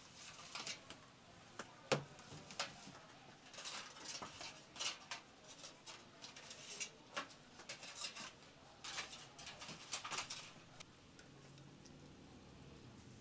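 Aluminium foil crinkling and rustling in irregular bursts as sheets are handled and folded around fish, with a few sharp clicks and taps against a metal tray, the loudest about two seconds in.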